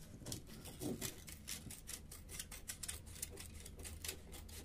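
Scissors snipping through the leader of a 35 mm film strip, a run of faint small cuts, several a second, as the leader is trimmed to the long tongue a bottom-loading Leica-type camera needs.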